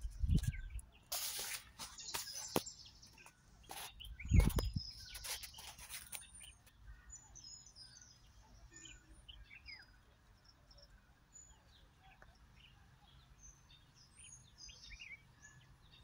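Leaves rustling and knocks as a handheld camera is moved through foliage for the first six seconds, with one loud thump about four and a half seconds in. After that, faint scattered chirps of small birds.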